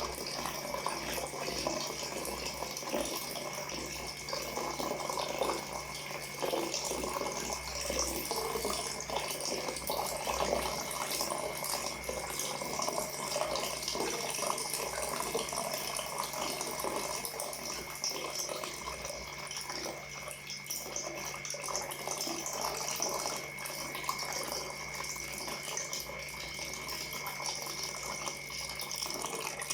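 Water pouring and splashing steadily into water, a continuous stream with many small spatters.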